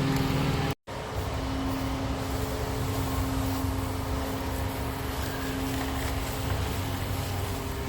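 A steady machine or engine hum with a low rumble and a constant droning tone. The sound cuts out completely for a moment just under a second in, then carries on unchanged.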